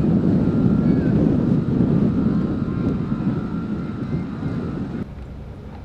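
Loud low rumble of wind buffeting the microphone, dropping off suddenly about five seconds in.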